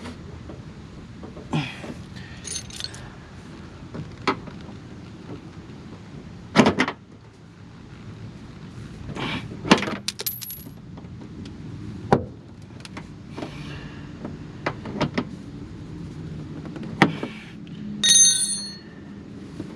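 Scattered clicks, knocks and scrapes of hands and tools working on a car's plastic bumper, with a short metallic ring near the end.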